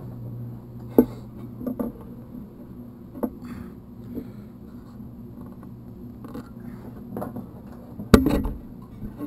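Handling noises at an old Westinghouse sewing machine as fabric is worked under the presser foot: a few scattered clicks and knocks, the loudest about eight seconds in. A low hum dies away within the first second.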